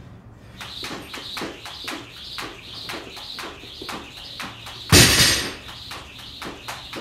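Jump rope doing double unders, starting about half a second in: quick, steady ticks of the rope slapping the floor with a whoosh on each turn. A loud thump comes about five seconds in.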